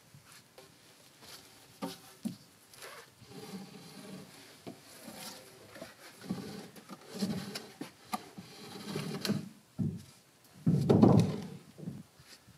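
Wooden poles knocking and scraping as they are carried and handled against a log wall and a wooden ladder: scattered knocks and rubs, with the loudest noise, about a second long, near the end.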